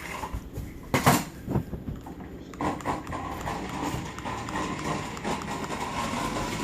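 Toy remote-control car driving on a hard floor: a few sharp knocks and clatters about a second in, then the small motor whirring steadily with the plastic wheels rattling.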